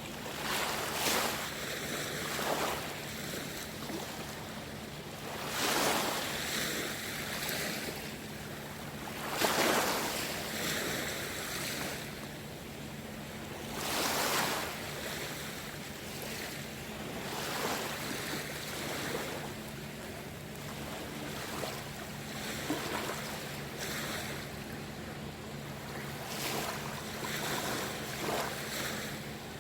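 Sea waves washing in, the rush swelling and falling back every four to five seconds, with a faint steady low hum underneath.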